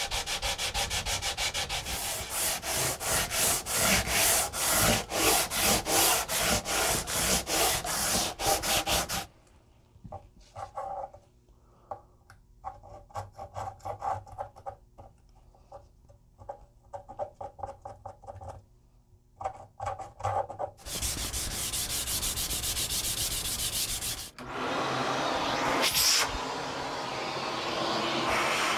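A long sanding beam is stroked back and forth over the bare rosewood fretboard of a Gibson Les Paul, sanding the old binding nibs level, in steady rhythmic strokes that stop about a third of the way in. Faint scrapes and ticks follow as a small hand tool is worked along the empty fret slots. About two-thirds of the way in, a vacuum cleaner starts and runs with a steady rushing noise.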